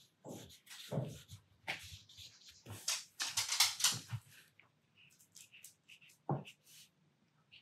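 Watercolour brush work: a few soft knocks of the brush against paper and paint pans, and about three seconds in, a second or so of brisk bristle swishing as the brush is worked.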